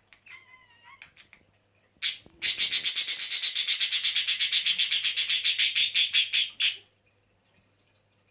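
A budgerigar gives a short warbling chirp. About two seconds in, a loud, rapid rasping scratch starts, about eight strokes a second, and runs for about four and a half seconds before it stops.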